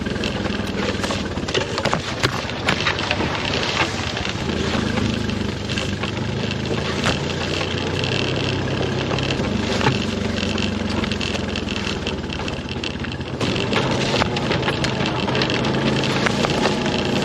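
ATV or UTV engine running while the machine drives over a rough, rocky trail, with constant rattling and knocking from the vehicle and stones under the tyres.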